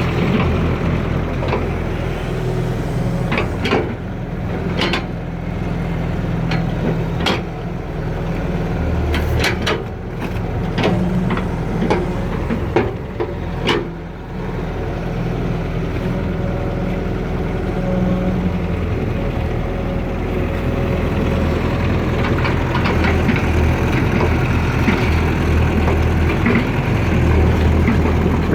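Excavator diesel engine running steadily, with a series of sharp knocks in the first half.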